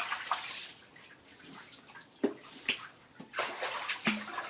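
Bathwater splashing and sloshing in a large steel basin as a baby monkey swims through it and a hand stirs the soapy water, in irregular splashes, the sharpest about two seconds in.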